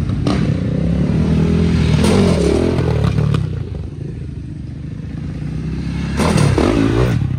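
Electric dirt bike being ridden: a low rumble of wind and tyres with some clatter, swelling about two seconds in and again near the end.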